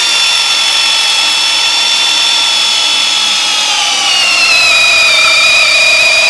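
Hercules 20V brushless hammer drill on high speed, whining steadily as it drives a 1-inch auger bit into wood. About four seconds in, its pitch drops and then holds lower as the motor slows under load, which the tester puts down to the wood grain.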